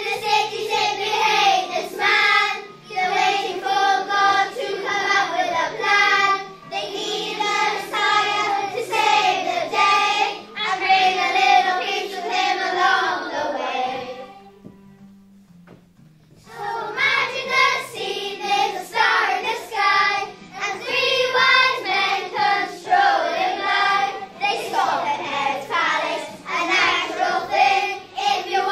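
A group of children singing together over a musical accompaniment. About halfway through the singing stops for roughly two seconds, leaving only the quiet accompaniment, then the voices come back in.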